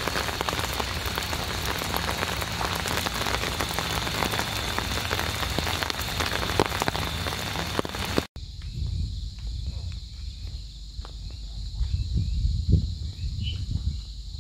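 Steady heavy rain pattering with dense raindrop ticks. About eight seconds in it cuts off abruptly to a much quieter scene with a low rumble and scattered taps.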